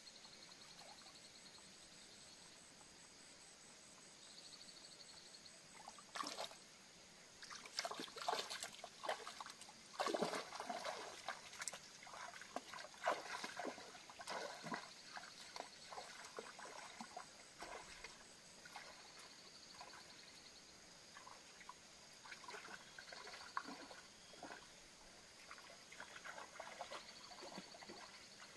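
Footsteps wading through shallow muddy water, a run of irregular sloshes and splashes that starts about six seconds in, is loudest a few seconds later, then continues more lightly.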